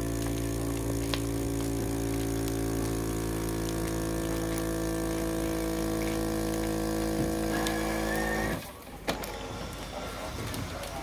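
Vacuum packing machine's pump running with a steady hum as it draws the air out of a bag, cutting off suddenly about eight and a half seconds in, followed by a sharp click.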